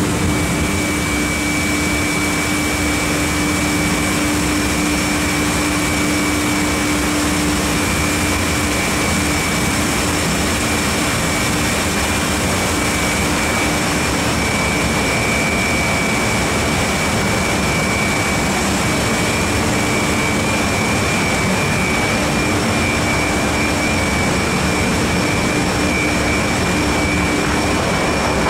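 Wood pellet plant's rotary drum dryer line running: a steady, loud machine noise with a constant high-pitched whine over it.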